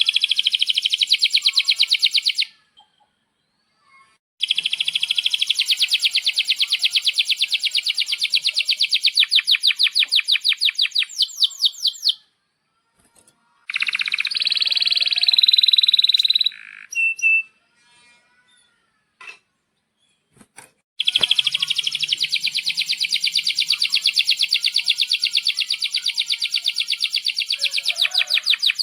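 Male domestic canary singing long, rapid rolling trills of fast repeated high notes in several extended runs separated by short pauses, with a brighter, denser phrase near the middle.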